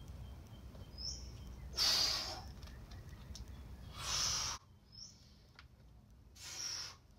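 A climber's sharp, forceful exhalations through the effort of hard bouldering moves, three of them about two seconds apart, with two short bird chirps between them.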